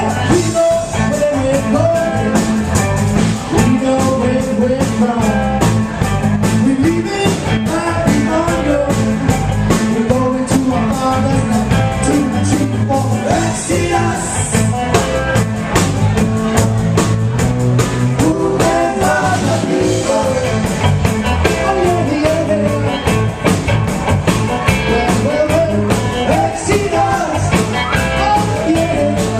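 Live band playing a reggae song, with guitar and a singer's voice over the band.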